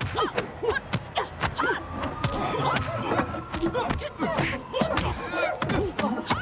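Film fight sound effects: a rapid string of punch, kick and body-hit impacts and thuds, mixed with the fighters' short grunts and yells.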